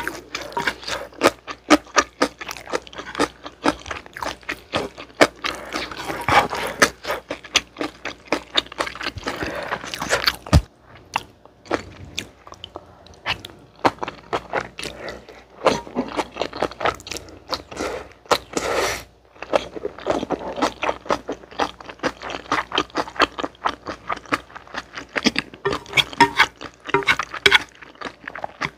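Close-miked eating of chewy jjolmyeon noodles with vegetables: slurping and chewing, a dense run of wet mouth clicks and crunches, with chopsticks stirring the noodles in a pan.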